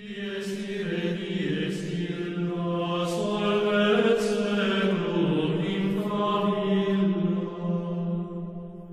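Background music: a droning vocal chant with long held notes over a steady low drone.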